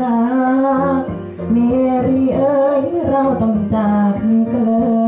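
Thai lae singing in a hoarse voice: one singer holds long, wavering notes over a musical backing, with a short breath about a second in.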